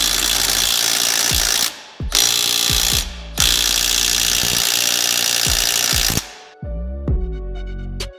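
Electronic dance music with deep, falling bass kicks. For most of the first six seconds a loud hiss covers it in three long stretches, each cutting off sharply. A wobbling bass line comes in about seven seconds in.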